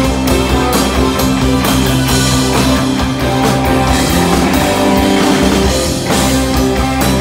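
Live rock band playing, with electric guitars over a drum kit.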